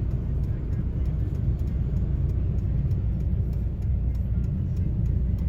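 Steady low rumble inside a stopped car's cabin: the engine idling while a strong side wind buffets the body in a snowstorm.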